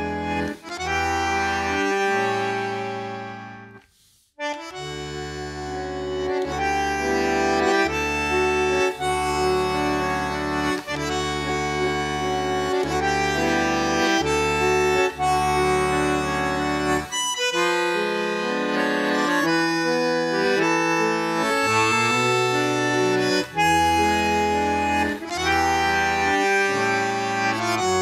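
Solo bandoneon playing a tango: sustained chords over a low bass line. The playing fades into a short pause about four seconds in, then the chords resume.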